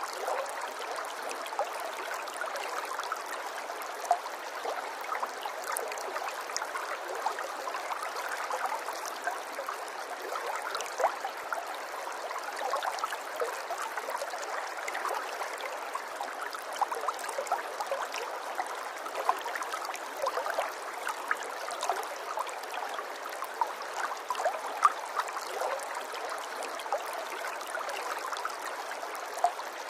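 Running water trickling and gurgling steadily, with many small splashing plinks scattered through it.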